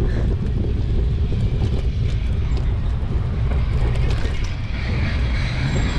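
Steady low rumble of wind buffeting the microphone of a camera on a moving bicycle, mixed with road noise.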